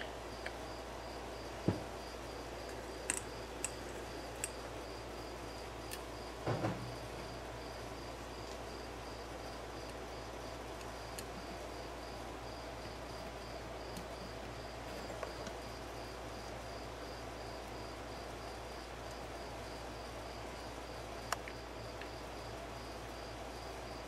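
A cricket chirping steadily, about two to three chirps a second, over a low steady hum. A few light clicks and knocks come from the plastic fan blade and motor being handled, the loudest about 2 and 6.5 seconds in.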